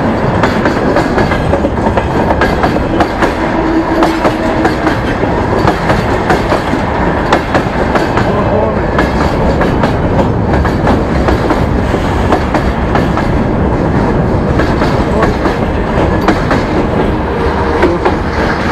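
Freight train passing close by, its wagons' wheels clacking over the rail joints with a steady rolling noise throughout.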